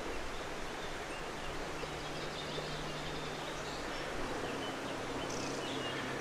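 Outdoor ambience: a steady rushing hiss with a few faint, scattered bird chirps.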